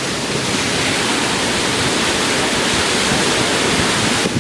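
Floodwater rushing, a loud steady hiss that thins suddenly just before the end.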